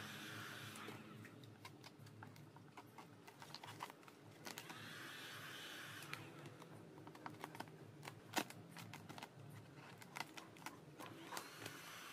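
Vinyl sticker film crackling in short, sharp clicks as it is handled and stretched, the loudest about eight seconds in. A heat gun's airflow hiss comes and goes: at the start, again around five seconds in, and near the end.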